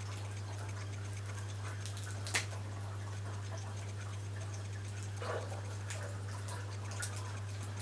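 Faint, scattered crinkles and clicks of a plastic lollipop wrapper being picked at by hand as it resists opening, over a steady low electrical hum.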